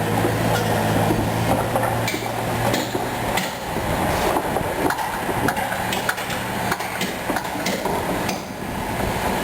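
Liebherr 904 excavator's diesel engine running, with repeated sharp metallic knocks and clanks from the working machine.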